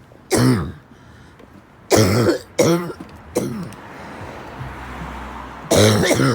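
A sick person coughing in bouts, about five loud coughs, with the phlegm not coming up.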